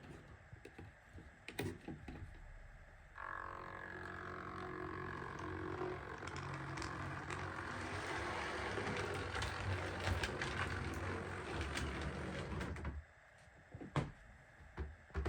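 An OO gauge Class 37 model diesel locomotive running along the track under DCC power, its motor whining and its wheels rumbling on the rails. It starts moving about three seconds in and stops about ten seconds later.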